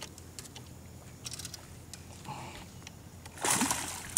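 Light splashing from a small hooked tarpon fighting at the surface on a fly line, with a louder burst of splashing about three and a half seconds in.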